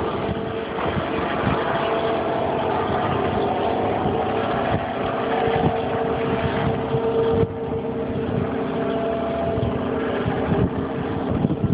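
A steady mechanical hum, such as an engine or motor running, with gusts of wind rumbling on the microphone.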